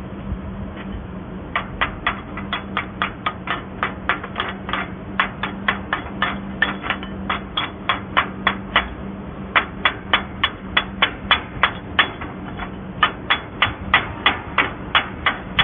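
Sharp knocks in fast, regular runs of about four a second, starting a second and a half in and broken by two short pauses, over a steady low hum.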